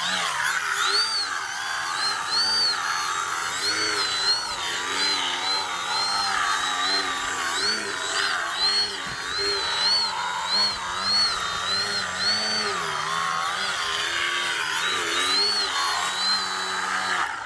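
Himax brushless electric motor and propeller of a DW Foamies Juka 40-inch foam aerobatic RC plane, whining steadily with its pitch rising and falling over and over as the throttle is worked to hold a nose-up hover.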